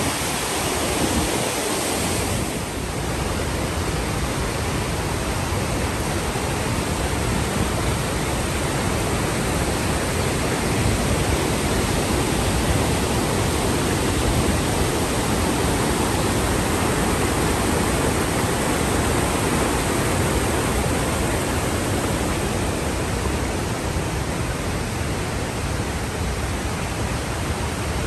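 Large waterfall pouring: a steady, even rush of water.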